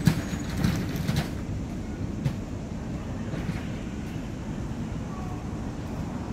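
Steady low outdoor background rumble, with a few sharp knocks in the first second and another about two seconds in.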